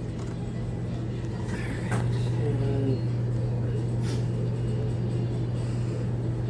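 Steady low machine hum, with a faint click about two seconds in.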